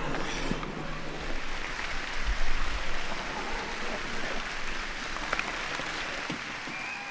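Crowd applause, an even wash of clapping, after a music track ends about a second in.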